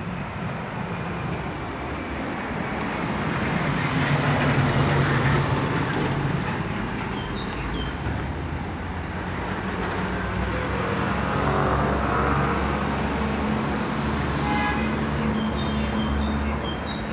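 Road traffic: motor vehicles passing on a busy road, their engines and tyres swelling in loudness twice, over a steady low engine hum. A few short high chirps near the end.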